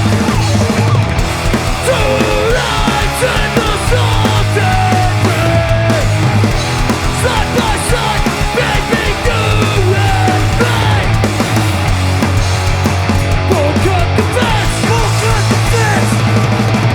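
Hardcore punk band playing loud and steady: distorted electric guitars, bass and drums, with a pitched line sliding up and down over the top.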